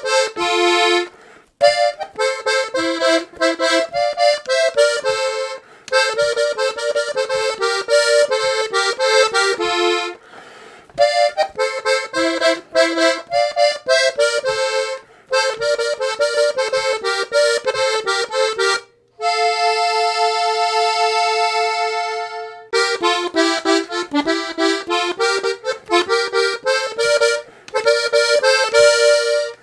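Blue Parrot Falcon diatonic button accordion in F–Bb–Eb with two middle-octave reeds per note, playing a quick melody of short notes with a few brief pauses. A little past the middle it holds one chord for about three seconds.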